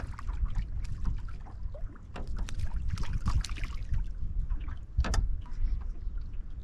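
Wind buffeting the microphone and choppy water slapping against the hull of a fishing boat, with a loud sharp slap about five seconds in.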